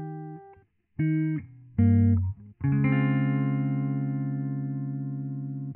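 Guitar playing the instrumental close of the song with no singing: a few short chords, each cut off in turn. Then, about two and a half seconds in, a chord is struck and left ringing.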